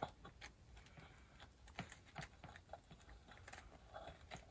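Near silence with faint, scattered clicks and taps as a double pulley is turned by hand on a mower-deck spindle shaft, worked around to line its keyway up with the shaft key.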